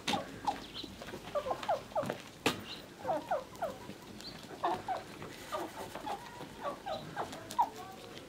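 Domestic hens clucking in quick clusters of short calls, with a couple of sharp knocks.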